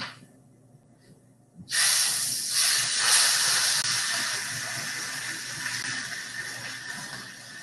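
Whole cleaned trout sizzling in a skillet of butter on medium-high heat: the sizzle starts suddenly and loudly as the fish goes into the pan, about two seconds in, then carries on, easing slowly.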